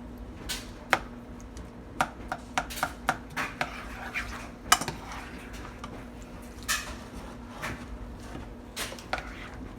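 Metal utensil knocking and scraping against a pot as macaroni and cheese is stirred, in irregular sharp clinks with the loudest about halfway through. A faint steady hum runs underneath.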